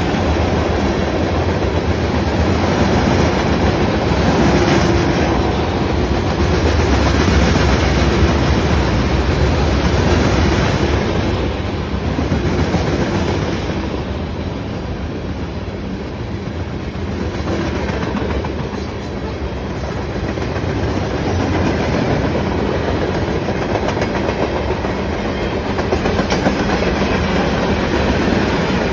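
Norfolk Southern freight train rolling past, its cars' wheels rumbling and clicking steadily over the rails.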